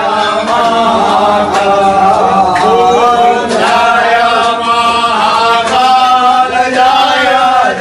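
Several male voices chanting a Hindu devotional hymn together, a steady sung recitation.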